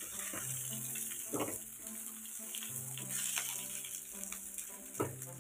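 Eggs frying in oil in a nonstick pan, a steady sizzle, with two sharp scrapes or taps of a spatula against the pan, about a second and a half in and near the end. Soft background music plays under it.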